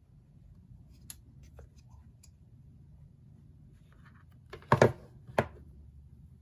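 Light clicks and taps of fingers handling a cardboard iPhone 12 box. Near the end come two louder knocks about half a second apart as the phone is lifted out of the box.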